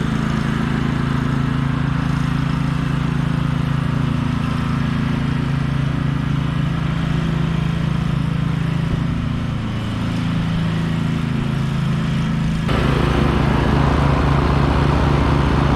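Troy-Bilt TB30R riding lawn mower's engine running steadily. About two-thirds of the way through, the sound abruptly gets louder and rougher.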